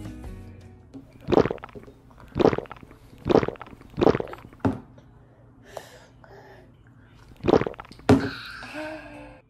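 Toddler gulping a drink from a sippy cup in one go: four loud swallows about a second apart, then a pause and two more near the end.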